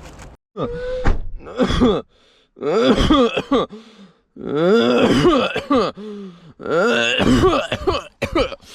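A person's voice making loud, drawn-out wordless vocal sounds with gliding pitch, in about five stretches separated by short pauses.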